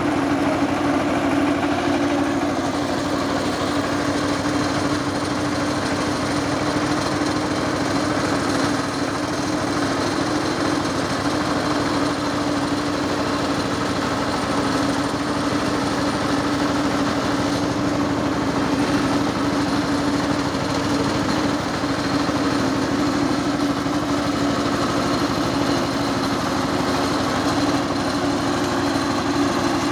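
Power tiller's single-cylinder diesel engine running steadily under load, driving a mounted rice milling machine that is hulling paddy.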